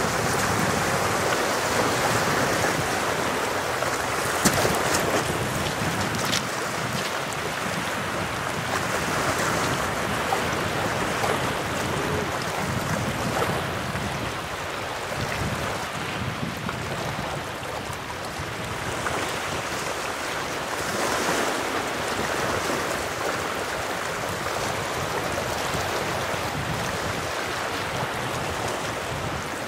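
Small waves washing onto the shore, with wind buffeting the microphone; the wash swells and eases slowly. A single sharp click about four and a half seconds in.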